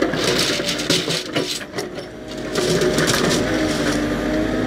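JCB 3CX backhoe loader running with a steady hum from its engine and hydraulics while its backhoe bucket works among bundles of steel rebar. Sharp clicks and knocks come through it, thickest in the first second and a half and again about halfway through.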